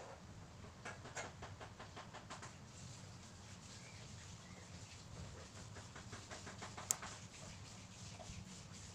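Highlighter marker tip rubbing back and forth on paper while colouring in: runs of quick scratchy strokes, with a single sharp click about seven seconds in. A few faint bird chirps.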